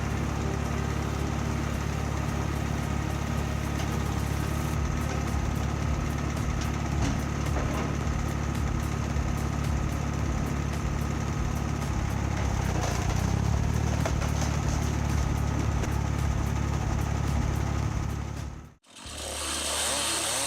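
Engine of an automatic firewood processor running steadily, with faint clicks and knocks over it. Near the end the sound cuts out abruptly and a different, hissier machine sound starts.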